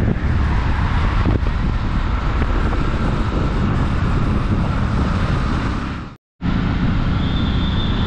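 Steady, loud rumble of road and wind noise from a moving vehicle, heaviest in the low end, cutting out completely for a moment about six seconds in.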